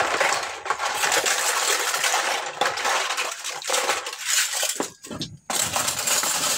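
Dishes being rinsed by hand in a basin of water: plates and cutlery clinking against each other and water splashing, the second and final rinse. There is a short break about five seconds in.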